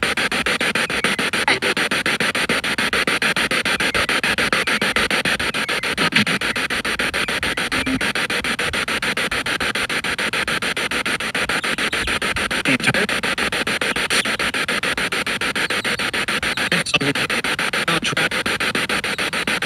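Spirit box, a handheld scanning radio played through a portable speaker, sweeping continuously across stations: a steady rush of static chopped into fast, even pulses, with brief snatches of broadcast sound here and there.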